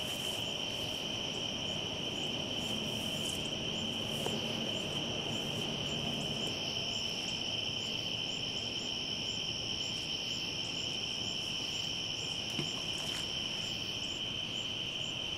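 A steady chorus of insects: a continuous high trill with a second, higher band over it, and faint regular chirps about twice a second.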